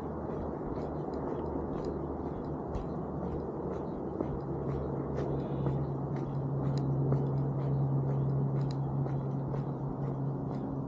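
Footsteps of a person walking on a road, a quick run of short crunchy clicks, over a low outdoor rumble. From about four seconds in a steady low hum comes in and grows louder toward the end.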